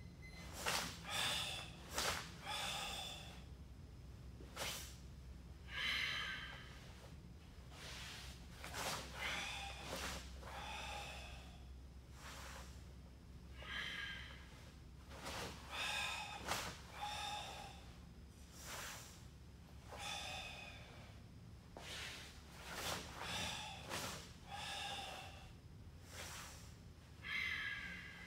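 A karateka breathing forcefully through the kata Suparinpei: loud hissing exhalations and inhalations every second or two, with short sharp snaps as techniques are thrown.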